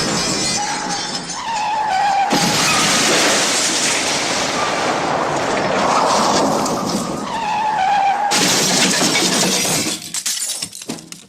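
The MGM 'Elephant Smash' stock cartoon crash effect in an edited version: a long, loud run of shattering glass and breaking debris. A wavering tone comes and goes over it, and the crash trails off and dies away near the end.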